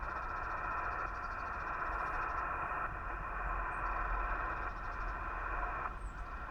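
Empty-band receiver hiss from a Yaesu FT-891 transceiver's speaker on 20-metre SSB, steady and narrow like a voice channel, as the operator listens for replies to a CQ call and no station answers. A low rumble runs underneath.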